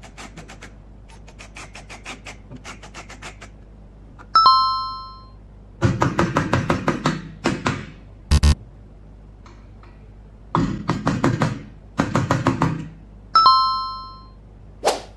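Faint ticking of a screwdriver turning a screw into a steel hinge, then a bright two-tone chime sound effect. Two quick runs of sharp strikes follow as a nail is driven through an aluminium channel into a wooden block, with a single thud between them. The chime sounds again near the end.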